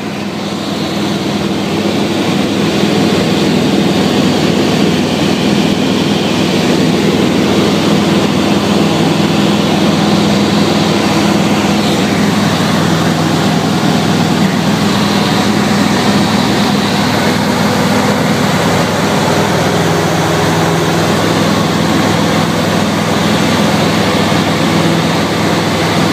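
Cabin noise of a Cessna 150 in cruise: the Continental O-200 four-cylinder engine and propeller drone steadily under a hiss of airflow. It fades in over the first couple of seconds.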